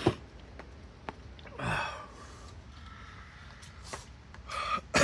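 A man gasping and breathing hard from the burn of Buldak spicy noodles: a sharp gasp at the start, a long breath about two seconds in, and more heavy breaths near the end, with a few small clicks.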